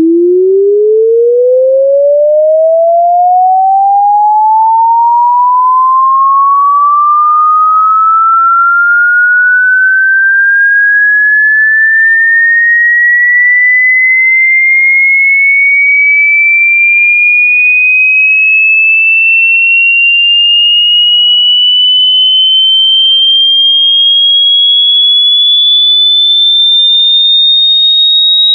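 A single clean electronic tone sweeping smoothly upward in pitch, from a low hum to a high whistle, at a constant loudness. It climbs quickly at first and then ever more slowly.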